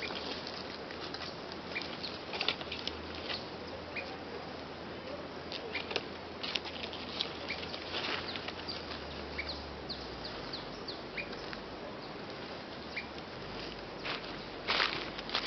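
Scattered light crackles and ticks, like dry leaves and twigs being disturbed, with a bird giving a short, high chirp every second or two. A louder cluster of crackles comes near the end.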